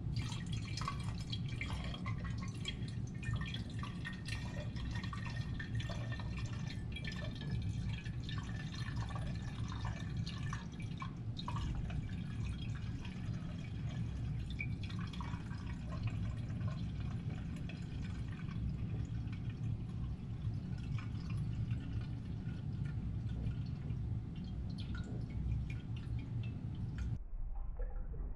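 Whiskey poured slowly from a glass bottle into the narrow neck of a glass decanter: a steady trickle with many small drips.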